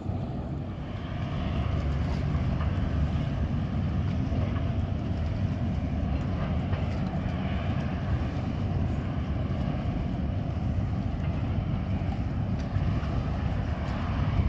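Ferry engines rumbling steadily, with a low, rough drone underneath.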